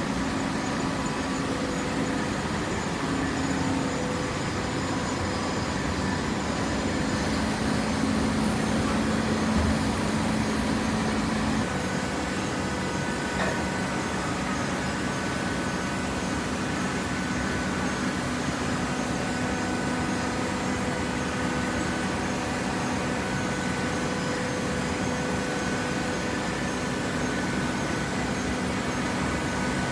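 Cardboard shredder and automatic baler running: a steady mechanical din with several steady hums. About twelve seconds in, one low hum stops and the noise drops a little.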